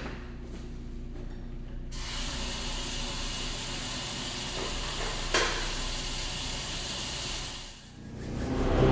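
Water running from a restroom sink tap, a steady hiss that comes on suddenly about two seconds in and dies away near the end, with a brief sharper burst a little past halfway.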